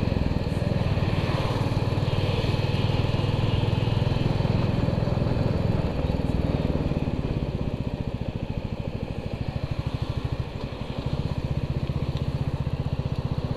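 Motorcycle engine running under way at road speed, heard from the rider's position. It eases off for a few seconds after the middle, then picks up again.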